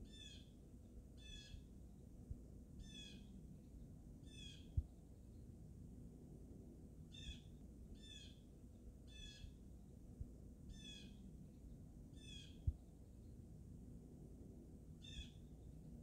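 Blue jay calling: about ten short, wavering calls, each a second or so apart, with a pause partway through. Under them runs a faint low rumble, and two short low knocks, one about a third of the way in and one about three-quarters through, stand out as the loudest sounds.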